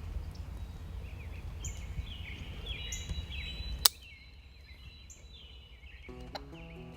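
Songbirds chirping over a low outdoor rumble, broken about four seconds in by a single sharp click, after which the background falls quiet. Music begins near the end.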